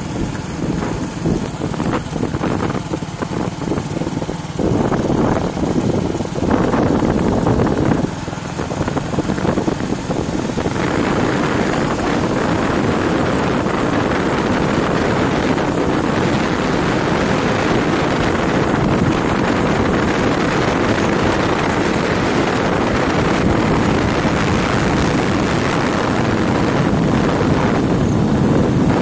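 Wind rushing over the microphone of a moving motorcycle, a steady noisy rush with the bike's engine and road noise beneath it. The rush grows louder and steadier about ten seconds in.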